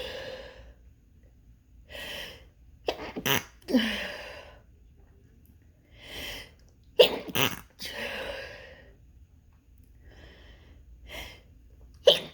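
A person sneezing intensely, twice, each sneeze preceded by a breathy intake of breath and ending in a falling exhale. A third sneeze bursts out right at the end. These are congestion sneezes, which the sneezer cannot yet tell apart as allergy to dust or a cold.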